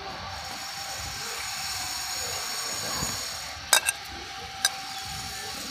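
Fried sitabhog strands poured from a plate into a wok of sugar syrup, over a steady hiss. Near the two-thirds mark come three sharp clicks close together as the plate is tapped against the wok's rim to shake off the last strands.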